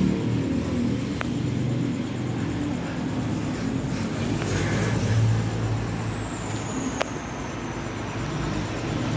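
Airbus A320-214 jet engines (CFM56) rumbling low and steady as the airliner approaches overhead. A thin high whine slides down in pitch about six seconds in. Two faint clicks come in between.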